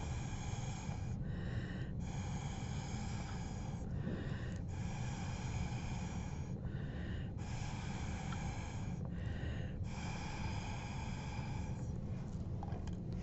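Breath blown hard through a drinking straw to push wet watercolor paint across paper, in about five long hissing blows of around two seconds each with short pauses for breath between, stopping near the end.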